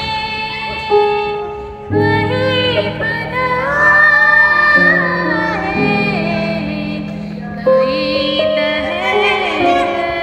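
Background music: a song with a high singing voice over sustained chords that change every second or two.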